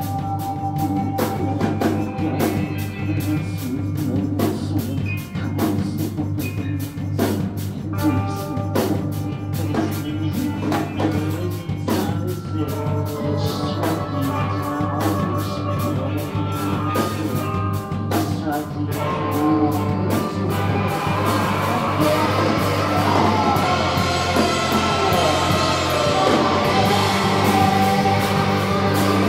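Live rock band playing: a drum kit keeps a steady beat under guitar and bass, with singing. About two-thirds of the way in, the sound thickens and grows louder.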